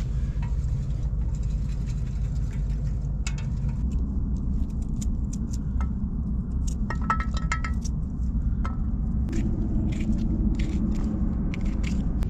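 Strong wind rumbling on the microphone, with scattered light clinks and taps of cooking utensils, busiest in the middle.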